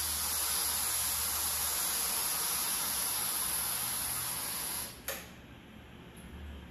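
A steady hiss that cuts off with a click about five seconds in.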